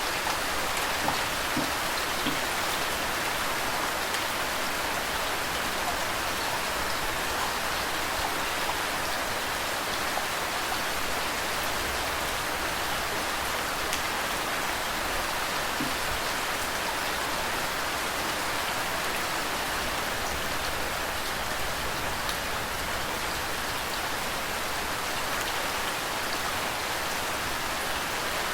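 Steady rain falling with flowing water: an even, unbroken hiss dotted with faint drop ticks.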